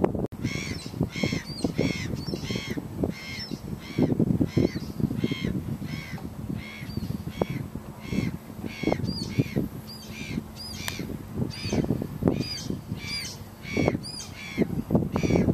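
A bird calling over and over in short calls, about two to three a second, with wind buffeting the microphone.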